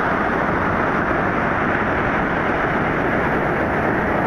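Steady, even rush of heavy surf and wind on the microphone.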